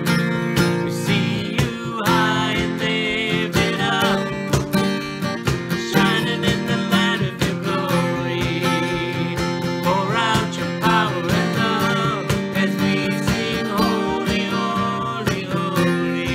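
An acoustic guitar is strummed while a man and a woman sing a slow worship song together.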